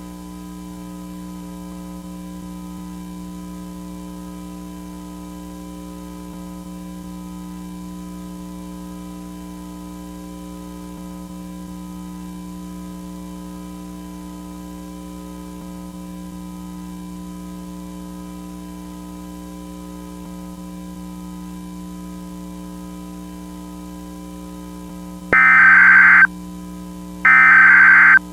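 A steady electronic drone of several held tones. About 25 seconds in, loud data bursts of an Emergency Alert System SAME header start: two bursts of about a second each, a second apart, signalling that a new alert is coming.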